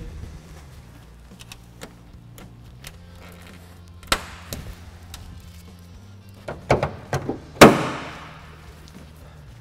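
Plastic push clips clicking as they are pressed into the top of a car's grille and bumper, a small snap with each one. Near the end comes a louder metallic clunk with a short ringing decay as the hood is handled and brought down.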